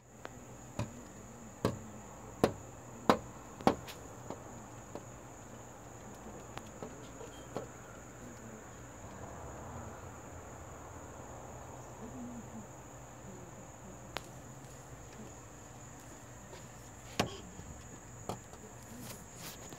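Crickets chirring steadily in a high, unbroken tone, with sharp taps on a glass sliding door: about five in the first four seconds and two more near the end.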